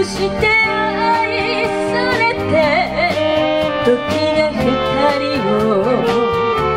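Live band playing a slow song, with saxophones, electric guitar, bass and drum kit, and a woman singing the melody with vibrato.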